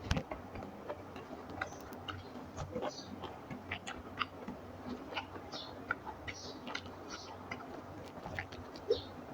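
A person chewing a mouthful of rice and fish curry, with irregular small wet mouth clicks and lip smacks.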